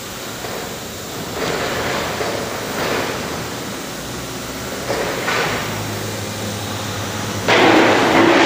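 Factory machinery around a multi-opening plywood hot press: a steady low hum with several rasping, noisy surges, the loudest coming near the end.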